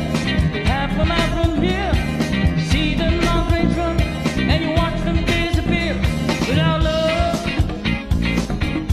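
Karaoke rock music: a backing track with bass, drums and guitar keeping a steady beat, and a voice singing a sliding melody over it.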